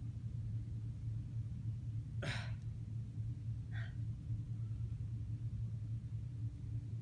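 A person's short, sharp sigh about two seconds in, followed near four seconds by a fainter short breath, over a steady low room hum.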